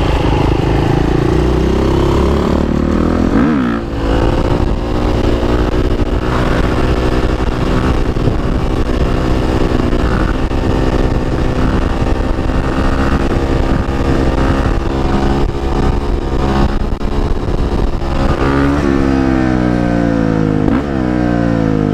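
Beta 500 RS single-cylinder four-stroke engine through an FMF PowerCore 4 exhaust, accelerating hard. The pitch climbs, drops at a gear change about four seconds in, holds steady under throttle for a long stretch, then rises again with another shift near the end.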